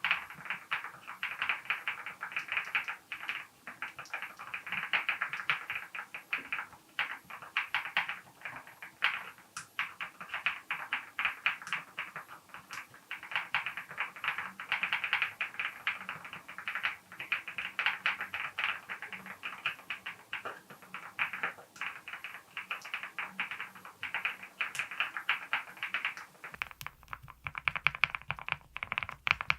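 Continuous fast typing on a VARO V75 Plus custom keyboard fitted with lubed XY Studio Bsun X linear switches, a PC plate, full foam and PBT keycaps: a dense stream of key clacks. Near the end a low hum comes in beneath the typing.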